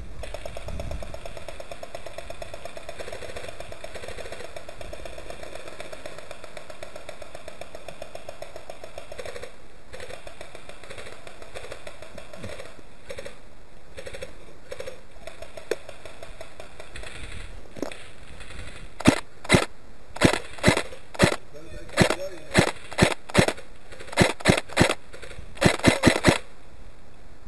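Airsoft gunfire: a rapid rattle of automatic fire for the first ten seconds or so, then, about two-thirds of the way in, a string of about fifteen sharp single shots close by, irregularly spaced at roughly two a second.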